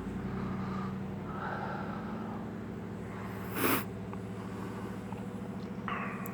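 A person sniffs sharply through the nose once about halfway, in freezing air, over a steady low hum.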